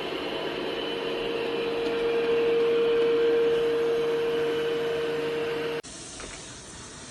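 ECOVACS Deebot X9 Pro Omni robot vacuum running with a steady whining hum that swells a little midway. About six seconds in it cuts off abruptly and gives way to a quieter, even hiss.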